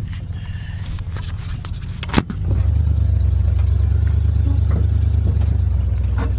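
A kayak being boarded at the water's edge: scattered clicks and a sharp knock against the hull about two seconds in, then a loud, steady low rumble.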